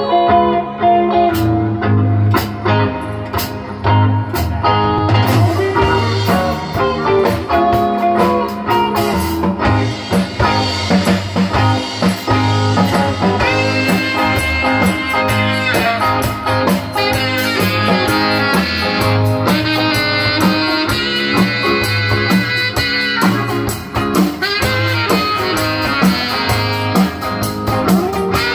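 Live band playing a blues instrumental on drum kit, bass, electric guitar and saxophone, with no vocals. The beat is steady, and from about halfway through long held horn notes ride over it.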